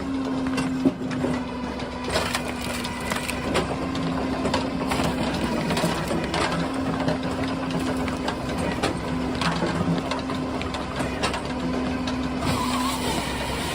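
A machine running steadily with a low hum and irregular clicks and knocks.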